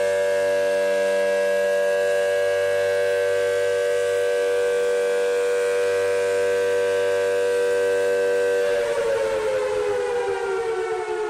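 Factory siren sounding a steady, chord-like tone, then winding down with falling pitch about three-quarters of the way through.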